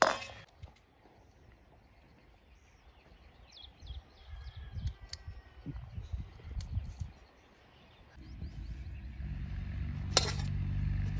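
Quiet outdoor ambience with faint short bird chirps and scattered low rumbles. About eight seconds in, a steady low hum sets in, and a single sharp click comes near the end.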